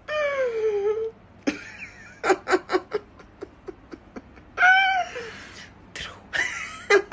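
A man laughing behind his hand: a long, high wavering vocal sound, then quick bursts of giggling, another high drawn-out sound midway, and more giggling near the end.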